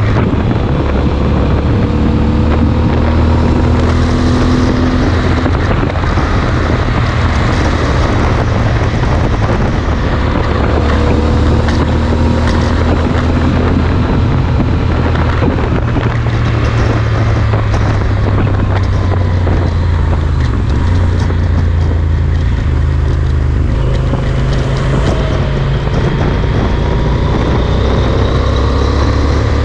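Yamaha Super Ténéré's parallel-twin engine running at highway speed through a Mivv Speed Edge slip-on exhaust: a steady low drone whose pitch drifts slowly, then climbs near the end as it accelerates. Wind rushes over the microphone throughout.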